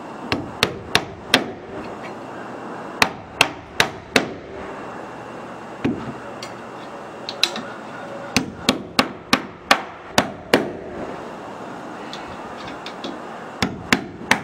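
Hammer driving nails through a metal truss plate into a wooden roof-truss joint. The blows come in quick runs of several strikes, about three a second, with short pauses between nails.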